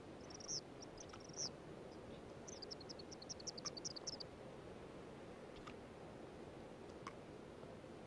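Faint, high-pitched bird chirps: a couple of short calls near the start, then a fast run of about a dozen chirps around three to four seconds in, over a quiet steady hiss. Two faint clicks follow later.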